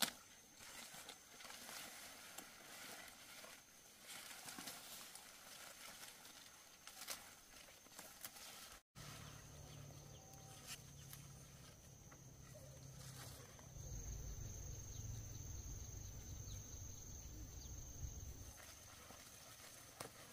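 Quiet rustling and small snaps of leaves and stems as squash vine shoots are picked by hand, over a faint steady high tone. About nine seconds in, after a brief dropout, a low rumble comes in and fades out near the end.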